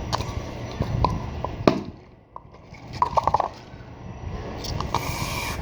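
Glue squeezed and poured from its bottle into a container, with a wet squelchy flow, short squeaks and clicks from handling the bottle.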